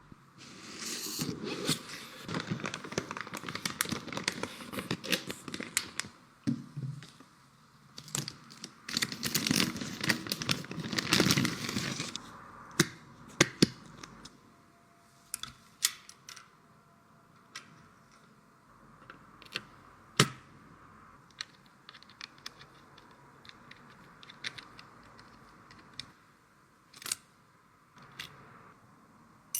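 Packaging being unboxed: rustling, crinkling and tearing of cardboard and plastic wrap for about the first twelve seconds, then scattered sharp clicks and taps as parts are handled.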